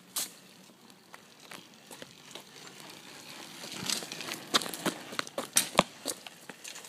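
Scattered light clicks and crackles, thickest from about four seconds in, as a small kids' bike rolls over gritty, leaf-strewn asphalt.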